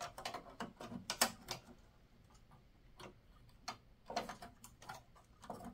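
Scattered light clicks and taps of expansion cards and sheet metal being handled in the card slots of an open desktop PC tower case, with a short lull partway through.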